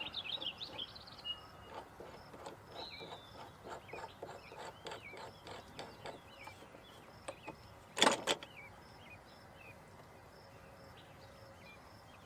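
A run of light, evenly spaced clicks for several seconds as a plastic gun vise is adjusted around a crossbow, then two sharp clacks close together about eight seconds in. Birds chirp in the background.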